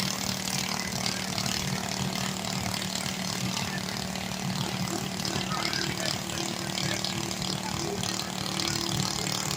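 Small riding-mower engine running steadily under load, with a second, higher tone joining about halfway through.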